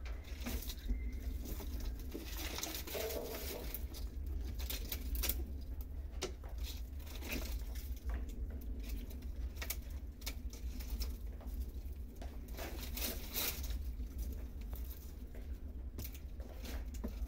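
Dry brushwood twigs snapping and rustling as they are broken and gathered by hand, with irregular sharp cracks throughout.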